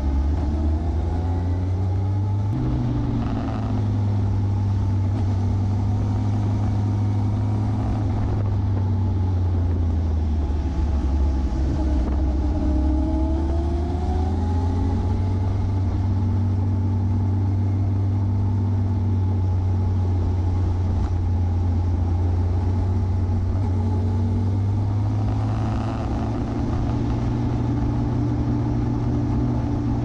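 Motorcycle engine running on the move through mountain bends, its note holding steady with a shift about two and a half seconds in and a slow dip and rise in pitch around the middle as the throttle is worked, over low wind rumble on the bike-mounted microphone.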